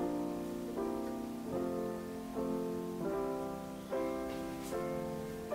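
Background solo piano music, gentle chords, a new one struck roughly every second.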